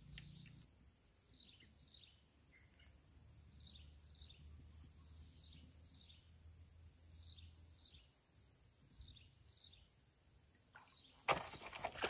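A bird calling over and over: short high chirps that fall in pitch, often two at a time. Near the end a sudden burst of rustling and knocks close to the microphone.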